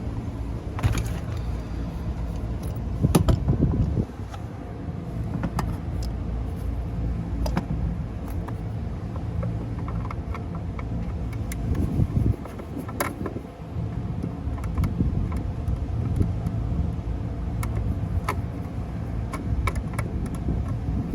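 Scattered clicks and light metallic taps of hand tools and screws as the cover of an HVAC duct smoke detector is unscrewed, over a steady low rumble.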